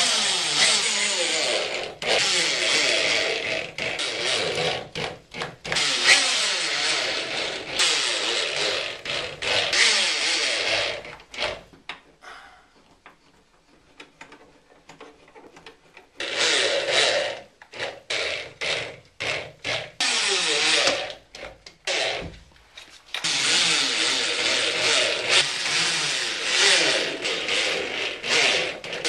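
Power drill running in long runs, its pitch wavering as it loads, with a pause in the middle: screws being driven to fasten a drywall patch to wood backing strips.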